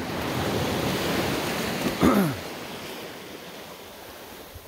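Ocean surf rushing on a beach, louder for the first couple of seconds and then easing off. About two seconds in, a short sound drops steeply in pitch over the surf.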